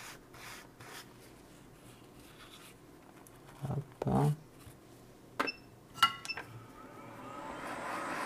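A few light clicks with a short metallic ring around the middle. From about seven seconds a hot air rework station's airflow comes on and grows steadily louder as it starts to heat the solder balls on a BGA reballing stencil.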